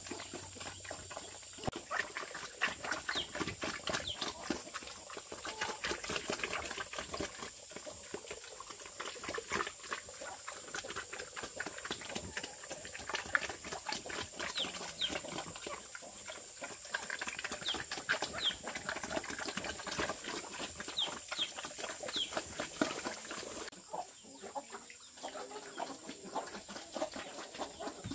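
Chickens clucking and chirping amid a dense patter of small clicks and taps, over a steady high-pitched hiss; the activity thins out near the end.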